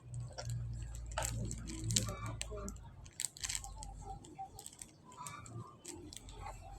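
Scattered crunching, rustling and small clicks of objects being handled close to the microphone, with a low rumble for about the first three seconds.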